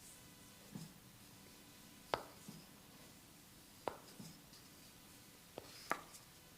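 Hands at work in a massage: four sharp snaps, the loudest about two seconds in, with a few soft low pats between them.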